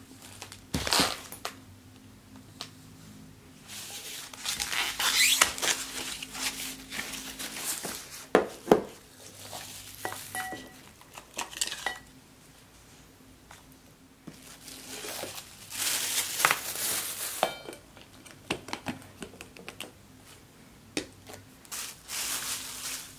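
Plastic wrapping film being torn and crinkled off new white lidded food containers, in two longer spells, with a few sharp knocks as the containers and lids are set down on a wooden table.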